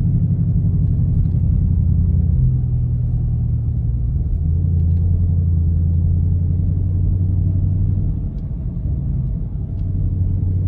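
The 5.7-litre Hemi V8 of a 2018 Dodge Charger R/T running at low cruising revs, a steady low drone heard inside the cabin along with road rumble. Its pitch shifts a couple of times in the first half, and it eases off for a moment about eight seconds in before picking up again.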